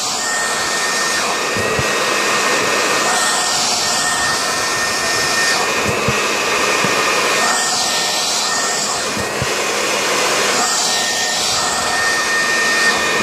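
A Worx WG506 electric leaf blower runs steadily, blowing through a 3-inch PVC pipe, with a thin high whine over the rush of air. The air sound changes every few seconds as baseballs are fed into the pipe and shot out of it.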